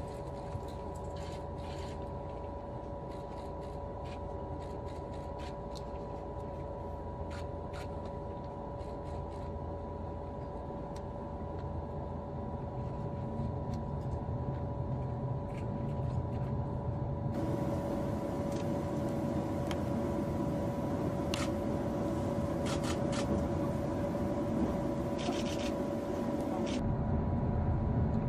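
Cabin noise inside the Japanese 600 km/h maglev train as it pulls away from standstill and accelerates to about 130 km/h: a steady electrical hum over a rumble, with light clicks and rattles. The rumble grows louder with speed, most noticeably about two-thirds of the way in.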